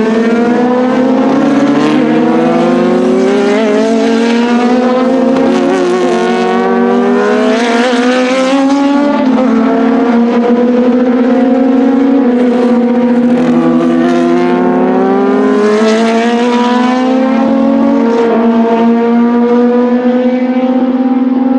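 Several racing car engines accelerating at once, loud and overlapping. Their pitch climbs and drops back at each upshift, several times over.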